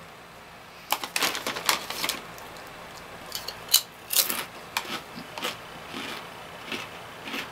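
Crunching of an extra-crunchy, kettle-style potato chip being chewed, close to the mouth. There is a quick run of sharp crunches about a second in, then slower, scattered crunches.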